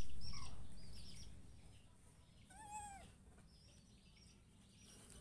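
A young monkey gives one short squealing coo that rises and falls in pitch, about halfway through, with faint high chirps before and after it. A low rumble fades away over the first two seconds.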